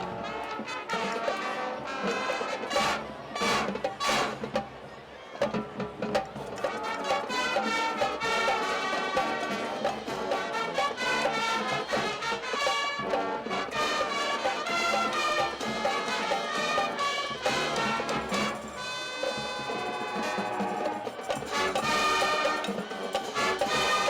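Brass band music: trumpets and trombones playing a lively tune, with sharp percussion strikes a few seconds in.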